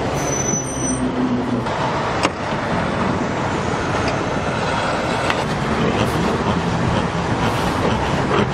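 Outdoor road traffic noise with a heavy vehicle's engine running steadily, and a brief sharp click about two seconds in.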